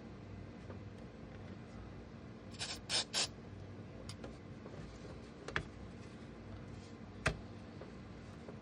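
Plastic kit parts being handled on a workbench: a quick cluster of clicks and rustles about three seconds in, then two single sharp clicks, over a steady low hum.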